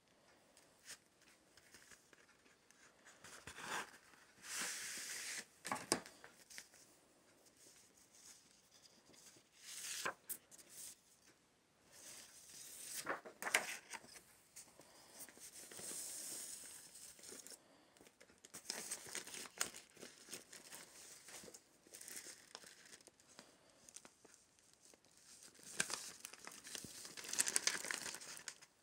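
Paper and thin card rustling and sliding in irregular bursts as LP inserts and a vinyl record in its white paper inner sleeve are handled and pulled out, with the loudest rustle near the end.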